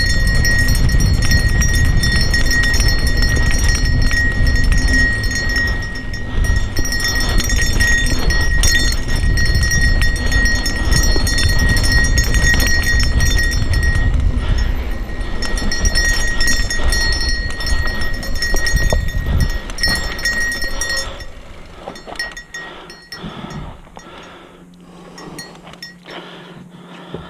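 Santa Cruz Nomad mountain bike rattling and clattering as it rolls fast down a dusty dirt singletrack, with heavy wind rumble on the camera microphone and a steady high whine. About 20 seconds in the rumble and whine stop and it goes quieter, leaving scattered clicks and knocks as the bike slows.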